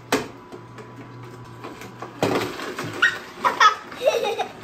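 Children laughing and giggling, loudest in the second half, over the low hum of a Kuvings C7000 slow juicer running. A sharp knock comes right at the start as the pusher is pressed into the feed chute.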